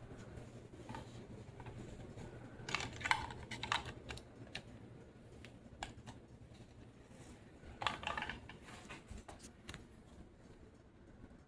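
Encon Elite ceiling fan running with a low steady hum, which fades about two-thirds of the way through. Two short bursts of quick clicking and rattling come at about three seconds in and again at about eight seconds in.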